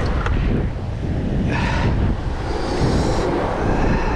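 Wind buffeting the microphone, a steady low rumble, with a short hiss about one and a half seconds in.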